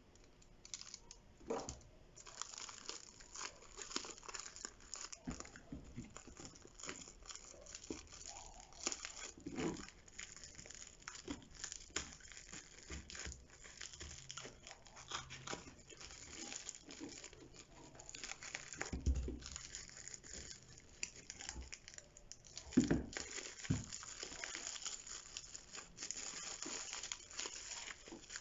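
Toy packaging crinkling and rustling as it is handled and unpacked, with many small clicks and two dull thumps in the second half.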